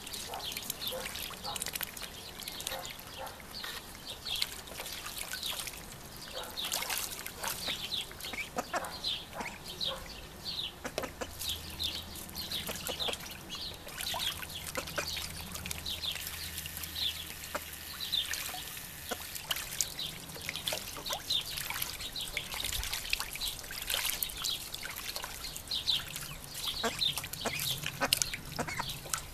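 Ducks splashing and dabbling in a shallow trough of water: a steady run of small splashes, drips and trickling, with short duck calls mixed in.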